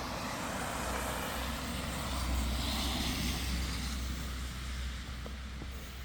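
A motor vehicle going by out of sight: a low rumble and tyre hiss that swell about two to three seconds in and then slowly fade.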